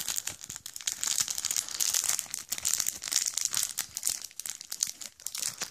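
A small plastic postal pouch is crinkled and tugged by hand, making a continuous irregular crackling that swells and fades as the grip shifts. The tough mailer doesn't tear open.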